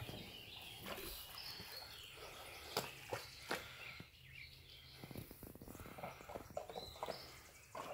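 Faint outdoor ambience: a bird chirps briefly a couple of times over a low background hum, with a few soft knocks, the loudest about three seconds in.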